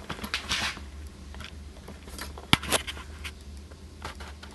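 Light handling noises from hands on a model aircraft wing: soft rustles and small taps, with one sharp click about two and a half seconds in, over a low steady hum.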